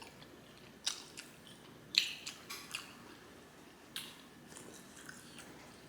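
Close-miked chewing of a mouthful of spaghetti in meat sauce: a few wet mouth smacks and clicks spaced out, the sharpest about two seconds in, with faint squishing between them.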